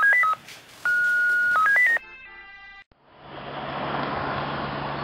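Electronic intro jingle of short stepped beeping tones, two quick phrases in about two seconds, then a softer tone tail. About three seconds in it cuts out, and outdoor background noise with a low steady hum fades in.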